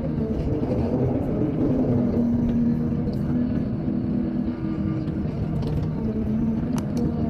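Excavator diesel engine running steadily, its pitch shifting slightly, with a few sharp clicks.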